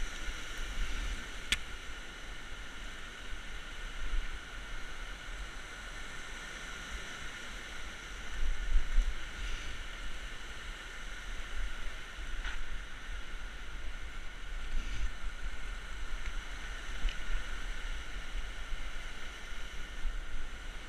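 Rushing river water over rocks, a steady hiss, with low rumbling wind on the microphone from riding. A few sharp clicks come through, one near the start and one about halfway through.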